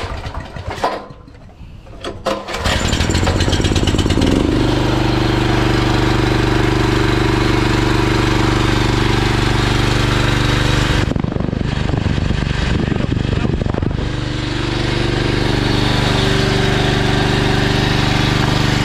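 Honda GX390 single-cylinder four-stroke engine on a generator starting after a few clicks and knocks, catching about two and a half seconds in, then running steadily. Its note breaks up for about three seconds in the middle before steadying again.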